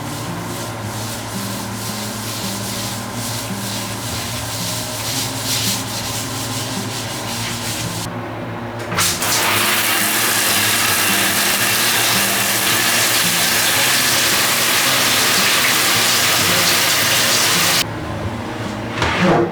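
Scrubbing strokes during household cleaning, many in a row, for about eight seconds. Then a louder steady rushing noise starts and runs for about nine seconds before cutting off suddenly. Soft background music plays underneath.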